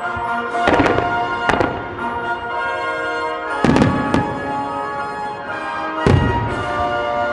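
Firework shells bursting in a series of sharp booms, with a few seconds between groups, over music played with the show.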